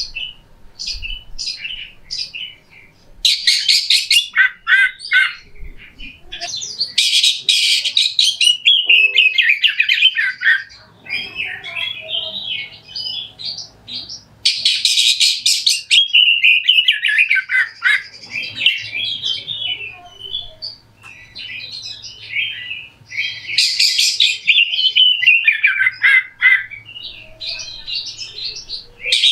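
Oriental magpie-robin (kacer) singing a harsh, rough song: fast runs of chattering and whistled notes that jump up and down in pitch, broken every several seconds by loud rasping bursts.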